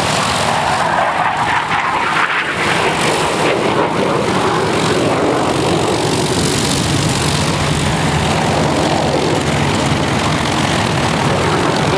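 The two radial piston engines of a DC-3-type airliner running with propellers turning as it taxis past close by: a loud, steady drone.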